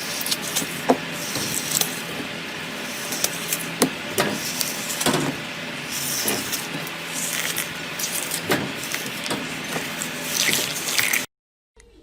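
Slime being squished and worked by hand: continuous wet squelching with many small sharp pops and clicks, cutting off suddenly near the end.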